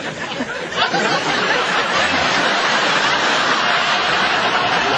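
People laughing over a steady rushing background noise.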